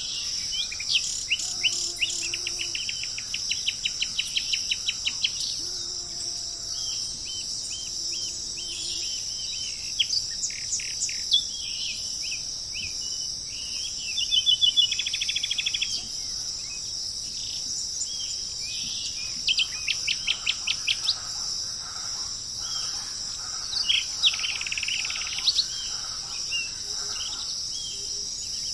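Tropical forest birds calling over a steady, high-pitched drone of insects, with bursts of rapidly repeated chirps and fast trills from several birds. A faint low call comes twice in the first third.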